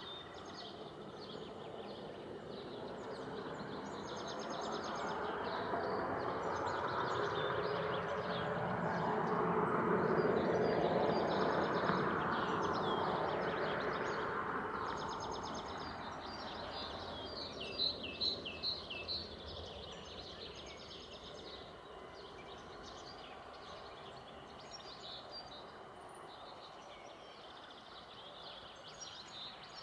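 Birds chirping and singing throughout, with a cluster of loud chirps about two-thirds of the way through. Underneath, a distant vehicle passes by, its rumble swelling up to a peak about a third of the way in and then fading away.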